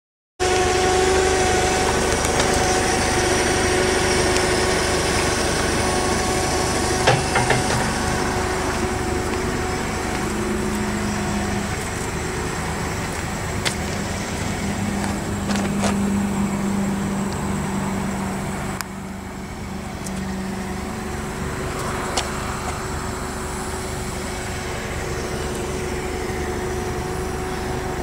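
Steady mechanical hum of a running engine or machine, with a few light clicks along the way.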